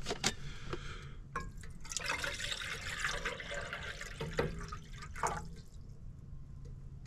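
Water poured from a metal water bottle into a Jetboil cooking cup, a splashing pour of a few seconds that trails off near the end. A few clicks and knocks of handling the bottle come first.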